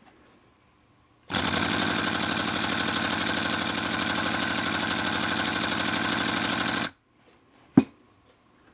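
Twin-cylinder slide-valve model steam engine running fast on compressed air: a loud, rapid, even chuffing of exhaust beats that starts about a second in and cuts off suddenly after about five and a half seconds. A single sharp click follows shortly after.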